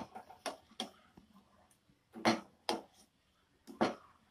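A steel ladle clinking against the side of a stainless steel pot while stirring a thin wheat rava, dal and jaggery mixture, about six sharp knocks at uneven intervals.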